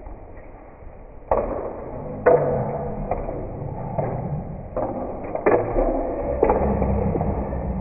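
A handful of sharp knocks and thuds, about six, irregularly spaced and echoing in a hall, over a steady background din from about a second in.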